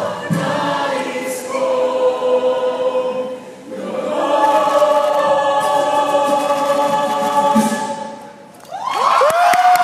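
Mixed choir of men and women singing sustained chords in two phrases, the second a long held chord that fades out shortly before the end. Near the end the audience breaks into cheers and high whooping screams.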